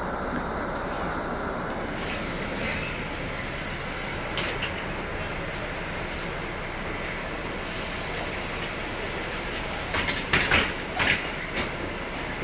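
Steady running noise inside a moving vehicle, with a high hiss from about two seconds in that stops abruptly a little before eight seconds, and a quick run of clattering knocks about ten seconds in.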